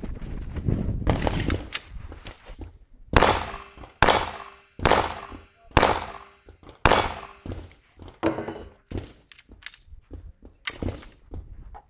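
A string of gunshots, most about a second apart with a pause before a last one near the end, each followed by a short echo. They come from other shooters on the range, not the shooter on camera, who is walking and not firing.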